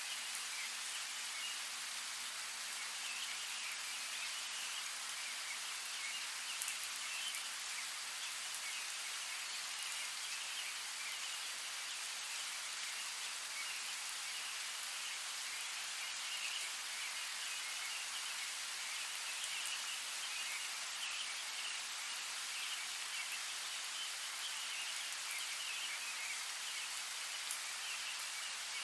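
Steady rainfall hiss, with a couple of sharper single drop hits, one about a quarter of the way in and one near the end. A faint, wavering high chirring runs underneath.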